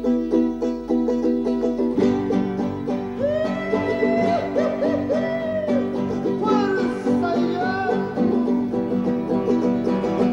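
Folk music on plucked and strummed string instruments, with quick, even picking. About two seconds in a lower part joins, and a sliding, wavering melody line rises above the strings.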